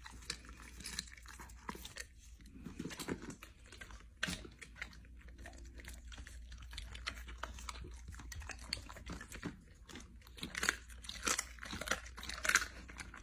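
Cane corso chewing and crunching raw food, with wet, smacking mouth sounds. The crunches grow louder and sharper near the end.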